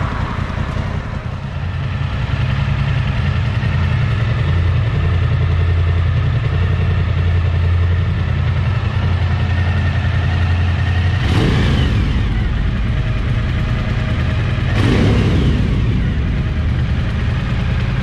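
Suzuki V-Strom 1000XT's V-twin idling through a Yoshimura exhaust, echoing in an underground parking garage. Twice in the second half the throttle is blipped, the revs jumping and falling back to idle.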